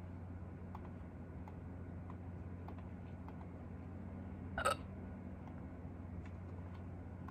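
One short, sharp hiccup about two-thirds of the way through, over a steady low hum with faint scattered ticks.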